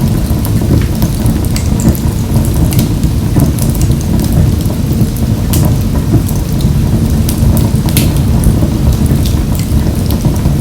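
Wood fire burning in a wood-burning stove: a steady low rumble of flame with frequent, irregular sharp crackles and pops from the burning wood.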